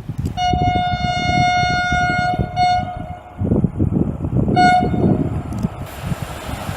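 Railway locomotive horn sounding a long steady blast of about two seconds, then a short second blast, as a train approaches, with wind buffeting the microphone.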